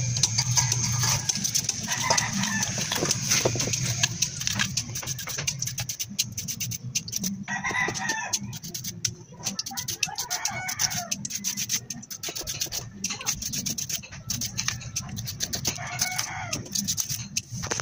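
Chickens clucking and a rooster crowing in several calls of a second or two, over a steady low hum and many small clicks and taps.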